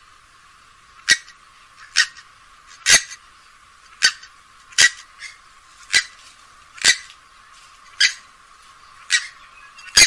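Grey-headed swamphen giving a series of short, sharp call notes, about one a second, some louder than others.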